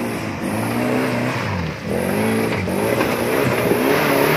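Suzuki Jimny 4x4's engine revving up and down under load as it claws through deep mud ruts, its pitch rising and falling repeatedly, with a brief drop about two seconds in.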